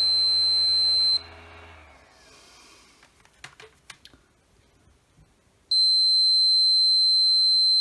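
Digital multimeter's continuity beeper sounding a steady high-pitched beep while its probes bridge a shorted MOSFET on a brushless drill's control board. It stops about a second in when the probes come off, a few faint probe clicks follow, and it beeps again for the last two seconds on a second MOSFET that is suspected to be shorted too.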